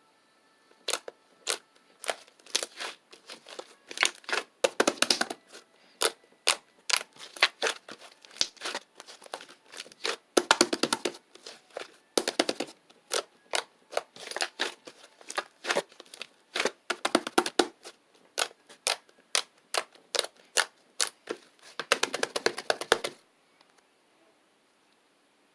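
Slime being squeezed and pressed by hand, giving irregular sharp pops and clicks with short runs of crackling. The sound stops near the end.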